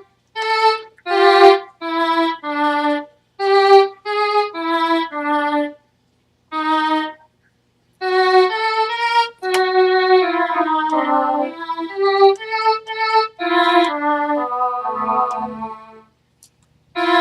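Electronic keyboard playing a melody on its violin voice: separate notes at first, then, after a pause about six seconds in, a quicker run of linked notes.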